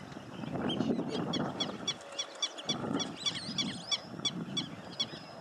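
Birds chirping rapidly in quick, repeated short notes over a low, uneven rumble that swells and fades several times.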